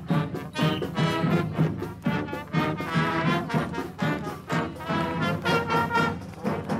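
Marching band playing a brass-and-reed tune over a steady drum beat.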